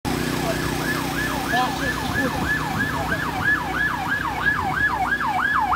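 Emergency vehicle siren in a fast yelp, sweeping up and down about three times a second, over a steady low engine hum.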